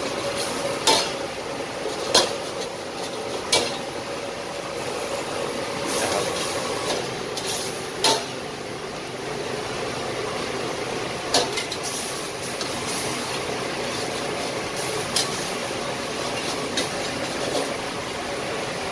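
Long metal ladle stirring and scraping in a steel wok, knocking against the pan every few seconds in sharp clinks. Underneath is the steady rumble of the kitchen's range hood.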